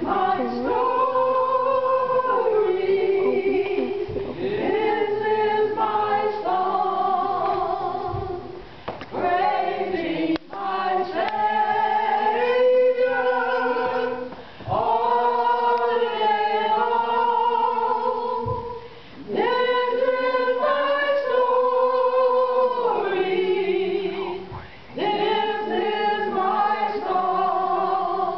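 A group of voices, mostly women, singing a hymn together in long held phrases with short breaks for breath between them.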